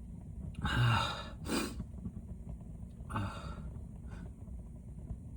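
A person with a heavy cold gasping and sniffing as a sneeze builds. There is a breathy gasp about a second in, a sharp sniff just after, and another gasp about three seconds in.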